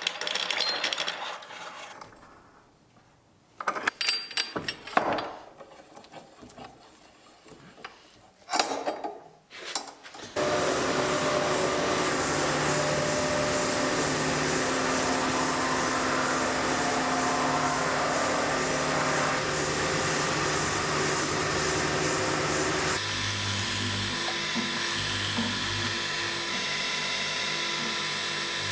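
Knocks, clicks and rubbing as clamps and a mitred wooden frame are handled. About ten seconds in, a wide-belt sander starts running steadily with a conveyor feed. About three-quarters of the way through, the sound changes to a pillar drill running, with a high thin whine.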